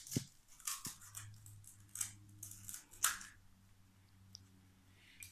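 Crisp, hollow golgappa (pani puri) shells cracking as fingers poke them open, a series of short sharp crackles at irregular intervals.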